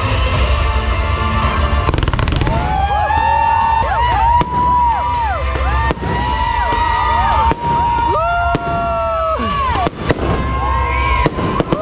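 Fireworks going off: many overlapping whistles gliding up and down, broken by several sharp bangs.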